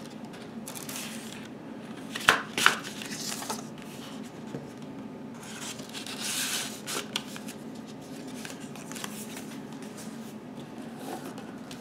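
Paper and thin cardboard being handled: a mini-LP CD sleeve and its paper inner sleeve rustling and sliding. A few sharp taps and scrapes come about two seconds in, and there is a longer rustle about six seconds in.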